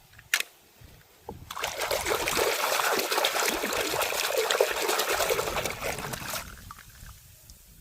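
Water trickling and splashing, as in washing toy cars, starting about a second in and fading out near the end. A single short click comes just before it.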